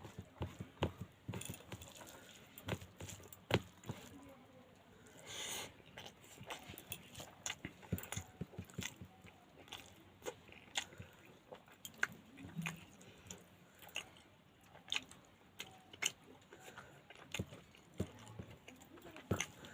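Close-up eating sounds of pangas fish curry being chewed: irregular soft wet clicks and smacks of the mouth, with a short breathy noise about five and a half seconds in.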